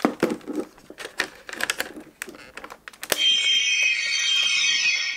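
Plastic clicking and clattering as the Dragon's Nail part is fitted onto a CSM Altering toy transformation belt, with a sharp snap about three seconds in. The belt then plays an electronic sound effect through its speaker: a bright ringing of high tones lasting about two seconds.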